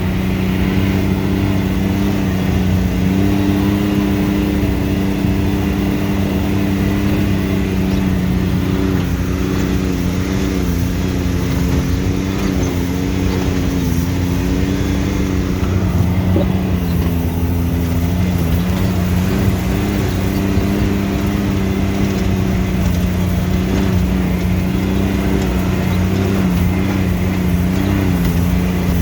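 Motor vehicle engine running at a steady cruising speed, a constant hum whose pitch wavers only slightly.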